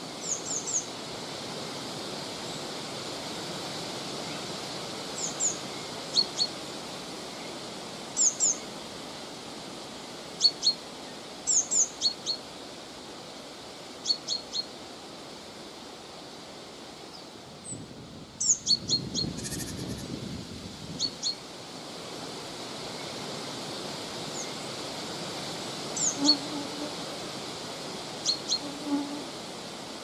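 Steady wind hiss through autumn trees, with small birds giving short, high chirps in quick twos and threes every second or two.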